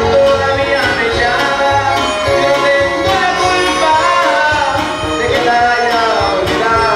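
Huasteco string trio playing a son: the small jarana huasteca and a larger guitar strummed in a steady rhythm, with a gliding violin-like melody and a man singing.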